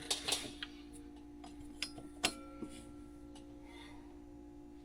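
Light metallic clinks and taps of hand tools during mechanical repair work: a few at the start, two more around two seconds in, the second the sharpest, some ringing briefly. A steady low hum runs underneath.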